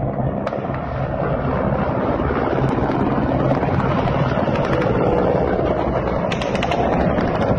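Military helicopters flying low nearby: steady rotor and engine drone, with a run of sharp ticks near the end.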